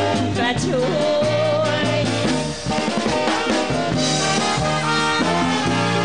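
Big band with saxophones and brass playing a swing-style dance tune.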